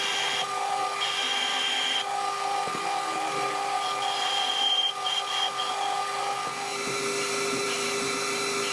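Metal lathe running under cut, turning a 4140 steel bar: a steady machine whine from the lathe, with a higher singing tone that comes and goes several times as the tool cuts.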